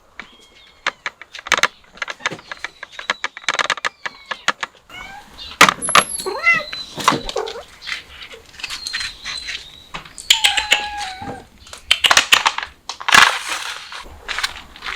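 Cats meowing, with several short pitched calls, amid many quick clicks and knocks.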